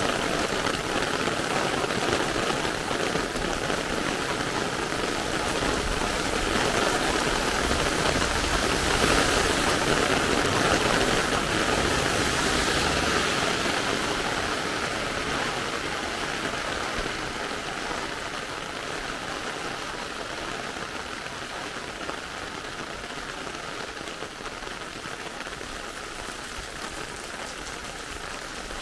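Heavy rain hissing and pattering on wet tarmac and pavement, a dense steady downpour. It grows louder in the middle, then eases to a softer hiss toward the end.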